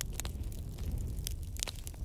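Wood campfire crackling, with frequent irregular pops and snaps over a low steady rumble.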